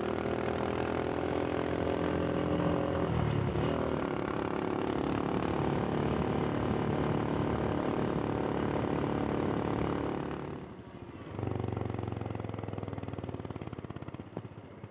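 Royal Enfield Himalayan single-cylinder motorcycle engine running steadily under way, with wind noise, as heard from a microphone inside the rider's helmet. Its pitch dips briefly about four seconds in; around eleven seconds the sound drops off for a moment, then returns lower and fades as the bike slows.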